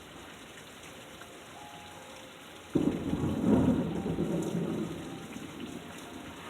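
Steady rain, then about three seconds in a sudden loud clap of thunder that rumbles low for a couple of seconds and fades.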